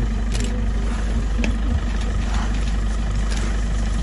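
Safari vehicle's engine idling, a steady low rumble, with a few faint clicks.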